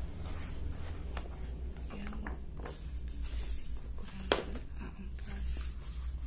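Heavy 200 gsm hot-press sketchbook sheets being lifted and turned by hand, with soft paper rustles and a sharp tap about four seconds in, over a steady low hum.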